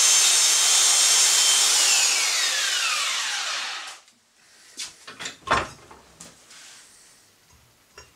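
An electric power tool grinding as a lawn mower blade is sharpened. About two seconds in it is switched off, and its pitch falls as it spins down over the next two seconds. After that come a few sharp knocks of handling, the loudest about five and a half seconds in.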